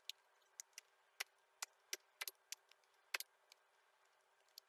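Computer keyboard keys clicking as a short command is typed: about a dozen faint keystrokes at an uneven pace, some in quick pairs.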